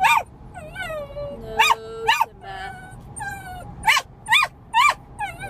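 Small fluffy dog yipping and whining: about six sharp high yips, the last three about two a second, with thin wavering whines between them.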